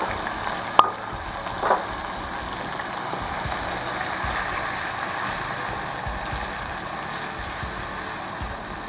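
Chopped tomatoes frying in hot oil with cumin seeds in an aluminium kadai, a steady sizzle as they are stirred with a wooden spatula. Two sharp knocks come about a second in and shortly after, the first the louder.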